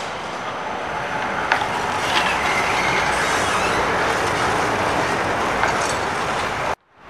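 Vienna ULF low-floor tram passing close by on street track, its wheels rolling on the rails and growing louder as it goes past, with a couple of sharp clicks and a faint high whine. The sound cuts off suddenly near the end.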